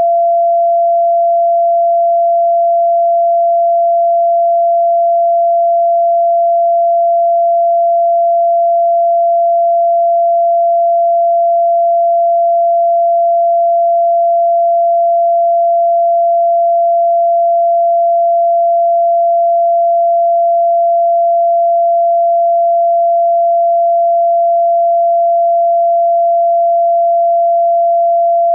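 A pure sine-wave tone at 682.8 Hz, held steady at one unchanging pitch with no overtones. It is the F (Fa) note of the fourth octave in a 432 Hz-based scale, presented as the Heart Chakra frequency.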